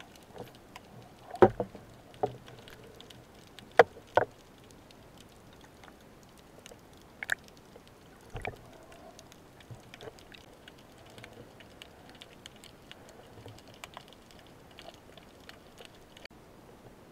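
Underwater, muffled knocks and clicks of speargun gear being handled: the steel shaft and the speared fish knocking against the gun. A few sharp knocks come about one and a half and four seconds in, over a faint steady crackle of small clicks.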